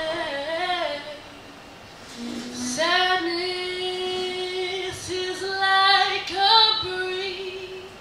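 A young woman singing unaccompanied: a short phrase, a pause of about two seconds, then a long held note and several shorter held notes.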